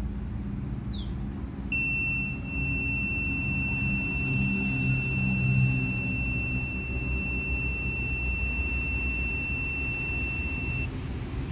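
A steady high-pitched electronic beep, held unbroken for about nine seconds before cutting off, over a continuous low rumble.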